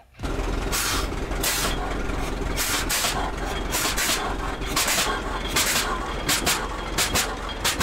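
Hart-Parr 60 tractor's two-cylinder engine running: a steady low rumble with sharp exhaust barks at uneven spacing, coming more often toward the end.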